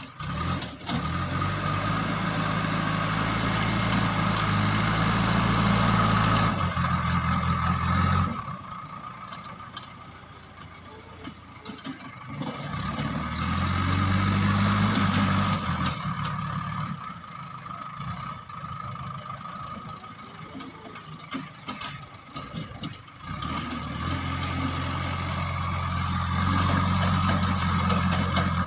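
JCB 3DX backhoe loader's diesel engine working, pulling hard three times (for the first eight seconds or so, again around a third of the way in, and near the end) and dropping back between pushes. A steady whine runs over the engine while it is working hard.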